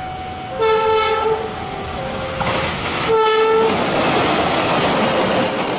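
Train horn sounding twice, a short blast each about two and a half seconds apart, over the rushing, clattering noise of a running train that swells after the second blast.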